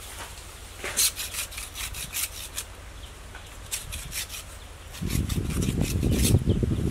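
Rasping, scraping strokes as a thin wild vine strand is stripped and scraped by hand, coming in quick runs of several strokes a second. A louder, steadier rubbing of the vine starts about five seconds in.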